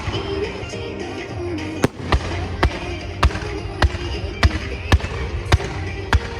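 Fireworks shells bursting in a rapid series of sharp bangs, about eight in a row spaced roughly half a second apart, starting about two seconds in, over music.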